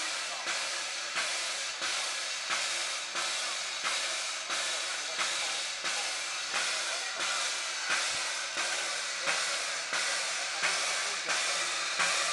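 Baldwin 4-6-0 tank steam locomotive No. 778 standing in steam, hissing in an even, pulsing rhythm of about one and a half beats a second.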